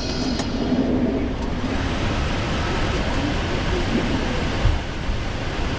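Steady rushing flight-deck noise in a Boeing 777 freighter on the ground, a mix of airflow and aircraft systems noise.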